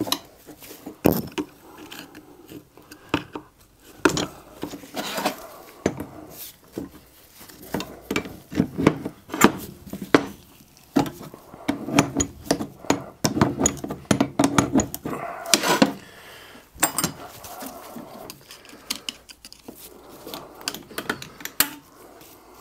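Spanner and hands working on the nuts and studs of a cast-iron steam waggon regulator valve: irregular metal clinks, knocks and clatter of parts and tools on a metal bench, busiest in the middle.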